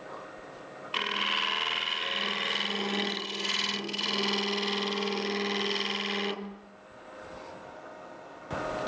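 Negative rake scraper cutting the inside wall of a green elm bowl spinning on a wood lathe, thinning the wall. It makes a steady scraping hiss over a low hum, starting about a second in and stopping after about five seconds.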